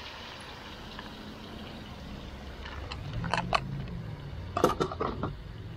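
Cookware being handled at the stove: two short runs of clinks and knocks, about three seconds in and again about four and a half seconds in, over a steady low hum.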